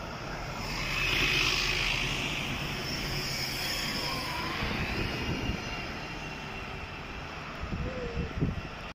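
Irisbus city buses, a Citelis and then an articulated Agora L, driving past close by. Their engine and tyre noise swells about a second in and slowly fades, with a few low knocks near the end.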